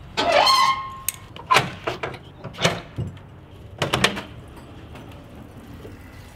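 A 1995 military Humvee's aluminium hood being unlatched and tilted open. A short squeaky creak comes first, then a series of metal clanks and knocks as the front panel and hood swing, and it quietens after about four seconds.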